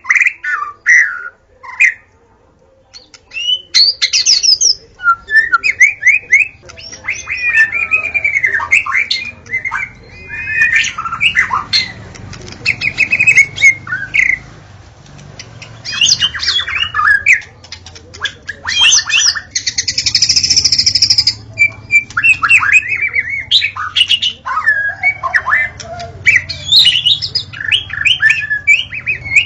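White-rumped shama singing a long, varied song: fast runs of repeated notes and rising and falling whistles, with a harsh buzzy phrase midway. There is a short pause about two seconds in.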